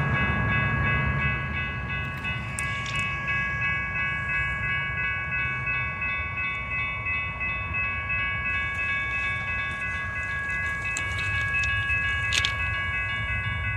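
Horn of an approaching BNSF freight locomotive sounding one long steady chord, over a low rumble.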